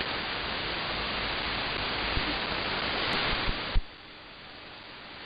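Shortwave receiver static and hiss on an empty 15030 kHz channel, heard through an AM receiver. About four seconds in, after a few sharp clicks, the hiss drops suddenly to a much lower level as the All India Radio transmitter's carrier comes on air.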